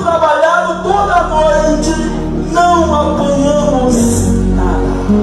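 Music: a voice singing a gliding melody over sustained held chords from an instrument.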